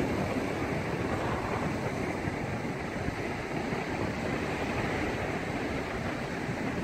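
Steady noise of sea surf on the shore mixed with wind on the microphone, with no distinct events.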